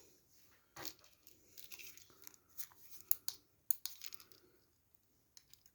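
Handling noise from a padlock and a thin metal padlock shim: a string of sharp little clicks and scratchy scraping, dying away after about four seconds, with a few faint ticks near the end.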